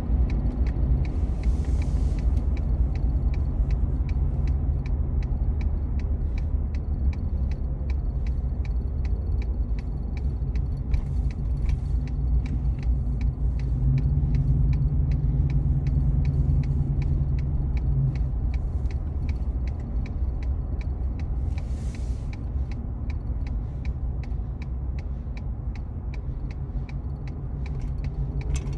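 Turn-signal indicator ticking evenly inside a moving car, over the steady low rumble of engine and tyres at highway speed; the engine note rises for a few seconds about halfway through.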